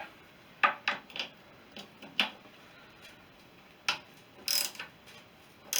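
Hand ratchet wrench clicking in short, irregular bursts as an engine mounting nut is loosened, with a few sharp metal clicks and taps between.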